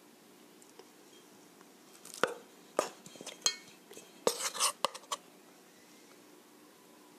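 Metal fork clinking and scraping against a stainless steel mixing bowl while zucchini slices are turned in batter, with a cluster of sharp clinks in the middle.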